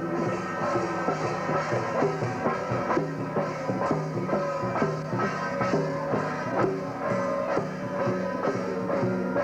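Music with a steady drum beat under a sustained melody line.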